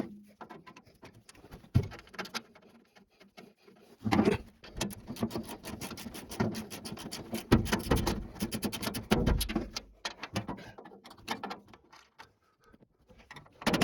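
Irregular clicks, knocks and scraping from hands-on work, busiest from about four seconds in until near the end.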